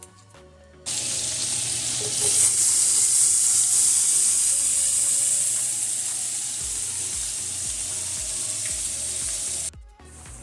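Sliced green bell peppers and red onions sizzling in a frying pan of bubbling fat, a steady hiss. It starts about a second in and cuts off abruptly shortly before the end.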